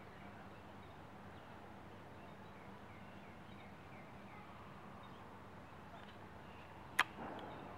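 Faint outdoor ambience with birds chirping now and then, and a single sharp click near the end, the loudest sound.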